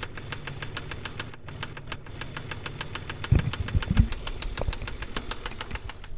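Mazda KLZE 2.5-litre V6 running with a steady, rapid knock of sharp ticks, about ten a second, the sign of a spun crankshaft bearing on cylinder No. 6. A few low thumps come in partway through.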